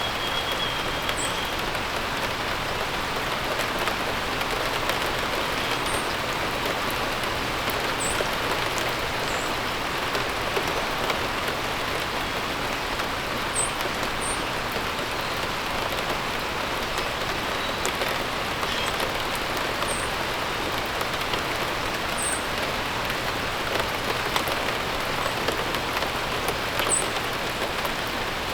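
Steady rain falling and pattering on surfaces, with a few short, faint, high bird chirps scattered through it.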